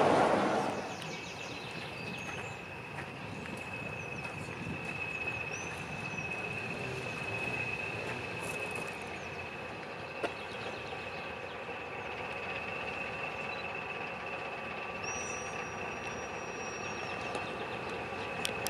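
Diesel locomotive hauling coaches, running slowly and drawing nearer from a distance, with a steady high-pitched whistle over a low rumble. Birds chirp briefly a couple of times, and a louder noise from the shot before dies away in the first second.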